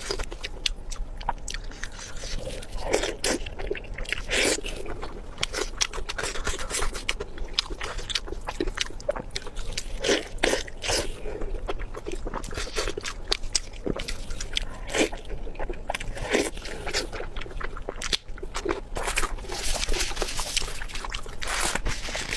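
Close-miked eating sounds: a person biting and chewing food, with an irregular, continuous run of crunches and clicks.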